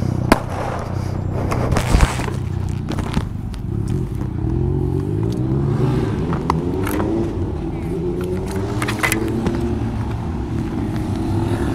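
A frightened motorcyclist breathing hard close to the microphone, over a motor vehicle engine running and accelerating, its pitch climbing several times. A couple of sharp knocks come in the first two seconds.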